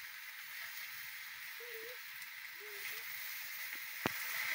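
Green vegetables sizzling in a pan over a wood fire, a steady hiss, with a single sharp click about four seconds in.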